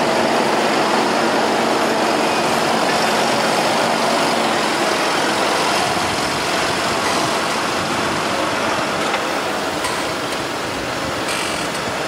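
Fendt 820 tractor's diesel engine running steadily while it works a reversible plough through stubble, the plough lifted and swung over partway through. The sound eases off slightly in the second half.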